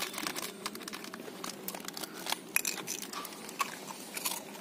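A young dog crunching and chewing biscuits: irregular sharp crunches, several a second.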